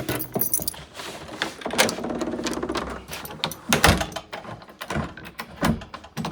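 A run of sharp clicks and knocks from a door and its lock hardware being handled, with two heavier thumps later on.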